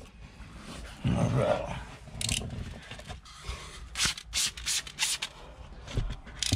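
Spray bottle squirting water onto window tint film on the glass: about six short hissing squirts, several in quick succession in the second half. A low bump of handling noise about a second in.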